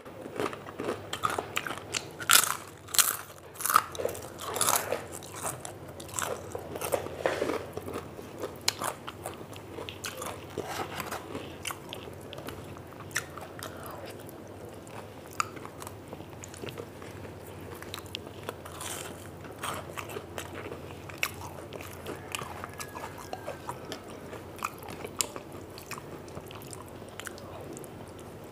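A person biting and chewing crisp fried food, with sharp crunches. The crunches are loudest over the first several seconds, then give way to softer, steady chewing and crunching.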